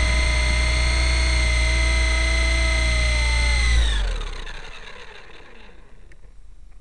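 Nine Eagles Kestrel 500 RC helicopter's electric motor and rotor running at a steady whine, picked up by its onboard camera. About four seconds in, as it comes down into the grass, the whine winds down in pitch and fades away.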